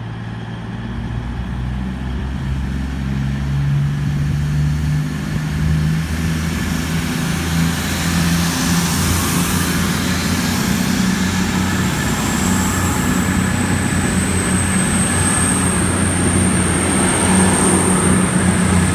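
Heavy freight train approaching through the station, its low rumble growing steadily louder. A high, thin steady whine joins about two-thirds of the way in.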